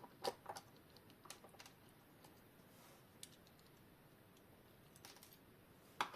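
Near silence with a few faint, scattered clicks and light taps of small plastic parts and tools being handled while a quartz alarm clock movement is taken apart.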